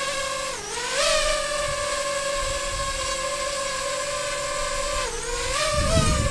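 DJI FPV drone's propellers whining steadily as it descends to land, the pitch dipping briefly about half a second in and again near the end as the throttle changes, with a low rumble near the end.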